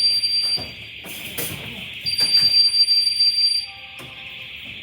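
Lockdown alert alarm sounding: a loud, high-pitched electronic tone that comes in pulses of about a second and a half with roughly a second between them, twice here, over a steady hiss, with scattered knocks of people moving.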